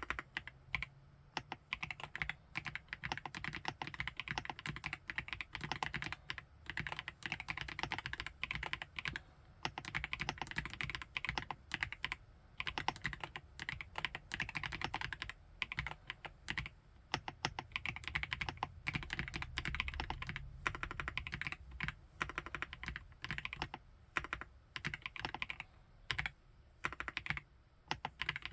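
FL-ESPORTS OG98 mechanical keyboard with Ice Silver linear switches being typed on at a steady pace, a dense stream of keystroke clicks with a few brief pauses.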